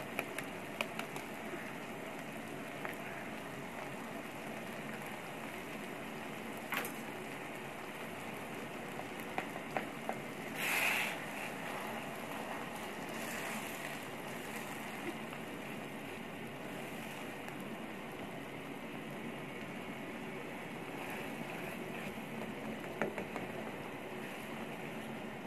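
Onion-and-egg masala sizzling and bubbling steadily in a non-stick frying pan. A plastic spatula stirs it, with a few light taps and one louder brief noise about eleven seconds in.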